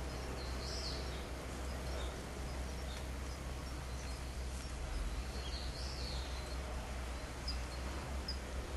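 Outdoor street ambience: a steady low hum with small birds chirping now and then, a few short high chirps spaced out near the end.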